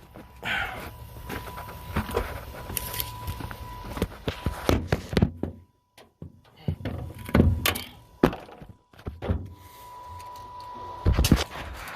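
Irregular knocks, thunks and clunks of things being handled, with a steady high-pitched tone in the background that drops out briefly about halfway through.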